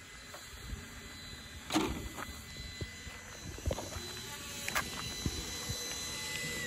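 Sharp clicks and knocks of the body being unclipped and lifted off an ARRMA Infraction 6S RC car, the loudest about two seconds in and again near five seconds, over a faint steady high whine.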